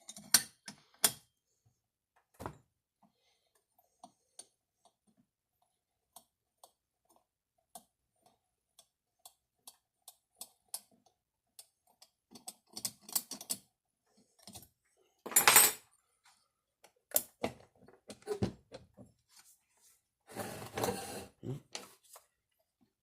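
Scattered small clicks and taps of hand tools and metal chainsaw parts being handled during disassembly, with a louder clank about fifteen seconds in and a rustling scrape near the end.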